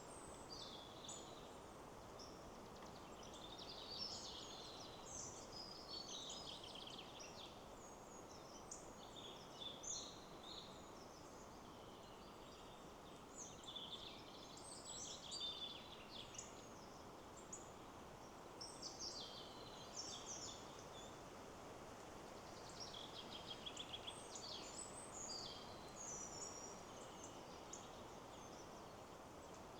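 Several small songbirds singing and chirping over one another in quick, high-pitched phrases, over a steady rush of wind in the trees.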